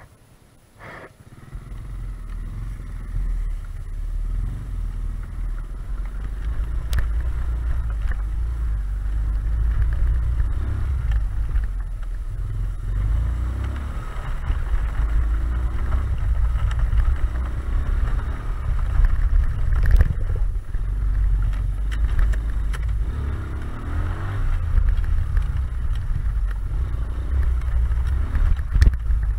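Small motorcycle ridden over a harvested rice field, its engine running under a heavy, steady low wind rumble on the handlebar-mounted camera's microphone, with occasional knocks from the rough ground. The sound comes in about a second in, after a click.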